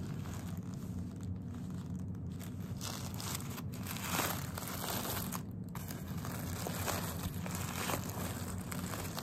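Tissue paper crinkling and rustling as it is handled and peeled back from around a doll, with many small crackles over a steady low hum.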